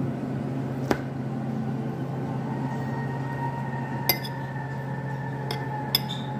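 Four short, sharp clinks of a fork and dishware against a ceramic plate and tiled tabletop, over a steady low hum.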